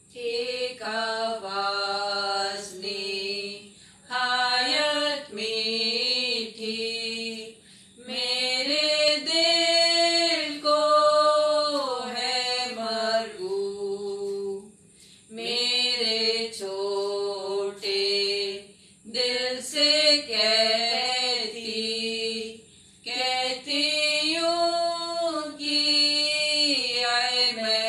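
Two women singing a Hindi Christian hymn together, unaccompanied, in phrases a few seconds long with held notes and short breaths between them.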